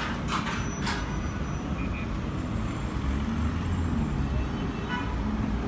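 Street traffic: a steady low rumble of motor vehicles, with a deeper engine drone coming in about halfway through and a few light clicks right at the start.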